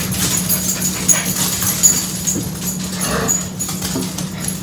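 Pet dogs whimpering over a dropped piece of pork steak, with scattered light clicks over a steady low hum.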